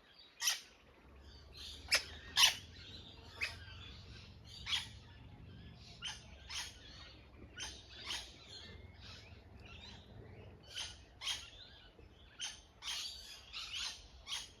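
Wild birds chirping: a steady stream of short, sharp high calls, several a second, the loudest pair about two seconds in. A faint low steady hum sits underneath for most of it.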